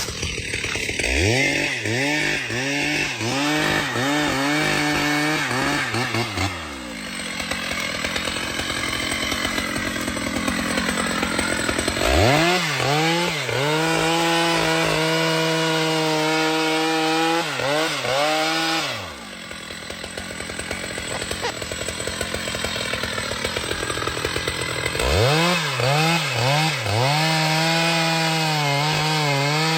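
Chainsaw running hard, revving up to full speed three times and holding there for several seconds each time, with rougher, lower-pitched stretches between, as in cutting timber.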